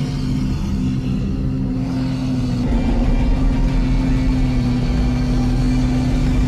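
A werewolf roar from a TV soundtrack: one long, deep roar held at a steady pitch over a low rumble, swelling louder about three seconds in.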